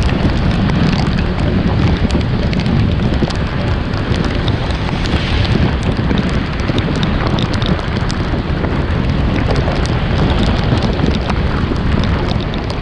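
Steady rain falling, with a loud low rumble on the microphone and scattered ticks of drops.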